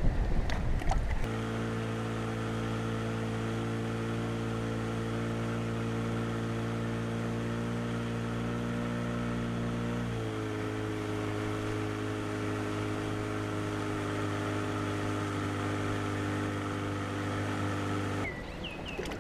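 A small fishing boat's outboard motor running steadily underway, a constant engine tone that drops slightly in pitch about ten seconds in and ends shortly before the end. It opens with about a second of louder splashing and wind noise.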